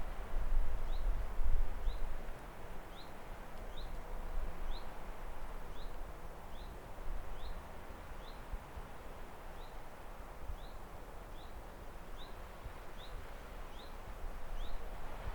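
A bird repeating a short, high, slightly falling chirp at an even pace, a little more than once a second, over a steady outdoor hiss. A low rumble is loudest in the first couple of seconds.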